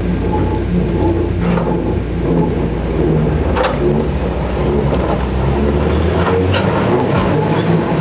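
Manitowoc 4600 dragline's engine running under load as the bucket is dragged and lifted through rock, with occasional clanks from the bucket and its chains. The deepest part of the engine note drops away about two-thirds of the way through.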